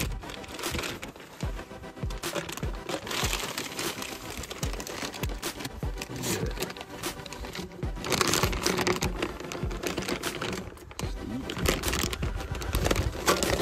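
Plastic packaging wrap crinkling and rustling as it is handled and pulled around a new exhaust pipe.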